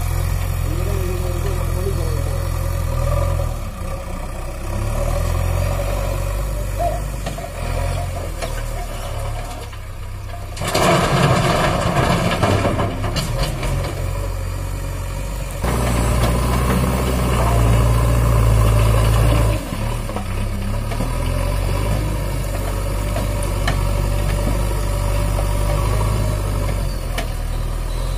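JCB 3DX backhoe loader's diesel engine running and changing speed as it works the front loader bucket. About halfway through comes a loud rattling clatter lasting several seconds as stones are tipped from the bucket into the lorry's bed, then the engine revs harder for a few seconds and drops back suddenly.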